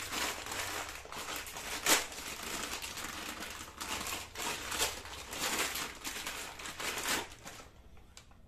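Plastic bag crinkling and rustling as it is handled and opened to unwrap a new strut mount, with one sharp crackle about two seconds in; the rustling stops a second before the end.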